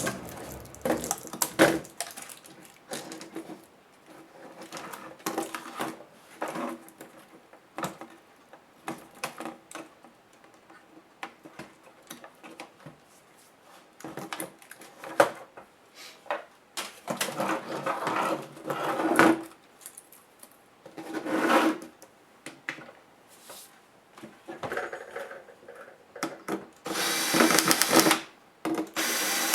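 Clicks, taps and knocks of laptop casing parts and screws being handled and pried during disassembly, with a small power tool whirring near the end.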